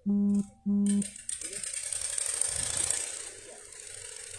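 Two short, loud beeps of a steady low tone, about half a second apart, followed by a steady rushing noise that eases off a little after about three seconds.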